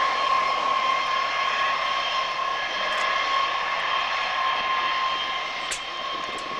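Jet engines of a Boeing B-52H Stratofortress, its eight TF33 turbofans, taxiing at low power. The sound is a steady turbine whine with one strong high tone over a hiss.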